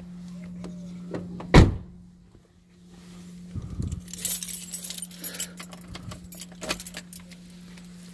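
A sharp bang about a second and a half in, then a few seconds of metallic jingling and clinking, over a steady low hum.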